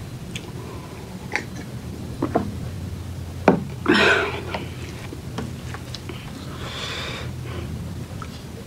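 Person eating close to the microphone: chewing and mouth noises with a few sharp clicks, and a louder breathy burst about four seconds in.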